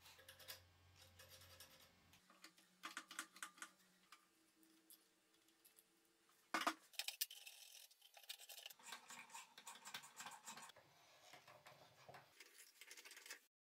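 Faint metal handling: small clinks and scrapes as a steel angle-grinder attachment is fitted and the nut on its pivot bolt is turned by hand and with a spanner, with one sharper clack about halfway through.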